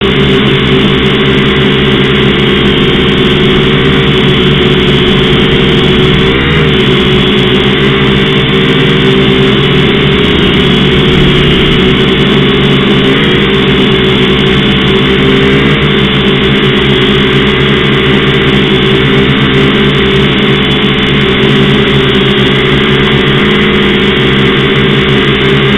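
Syma X5C-1 quadcopter's small motors and propellers whirring steadily and loudly, picked up close by its own onboard camera microphone. The pitch wavers briefly a few times as the drone manoeuvres.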